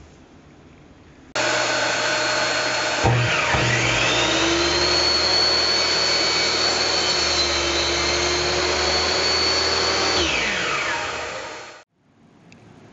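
A steady machine noise starts abruptly, and about two seconds later the electric coring drill spins up with a rising whine, runs at a steady speed for about seven seconds while boring a core from a human femur bone slab, then winds down with a falling whine. The sound cuts off suddenly near the end.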